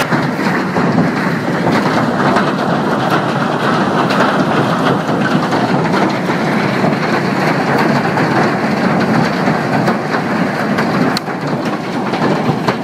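Heavy hail coming down hard: a loud, steady, dense rattle of countless hailstones striking the ground and nearby surfaces.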